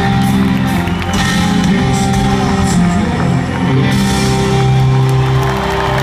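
Rock band playing live through a large hall's PA, with guitars, drums and vocals. From about four seconds in, the band holds a long steady chord.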